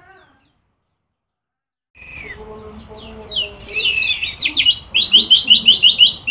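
Lemon-bellied white-eye (kecial kuning) singing. After a dead silence of about a second and a half, the song comes back at about two seconds with a quick jumble of high rising and falling notes, then settles into a fast run of repeated chirps, about five or six a second.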